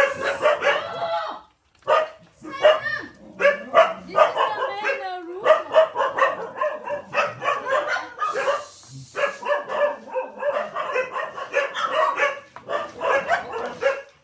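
Dogs barking and yipping in short, rapid, repeated barks, several a second, with only brief pauses.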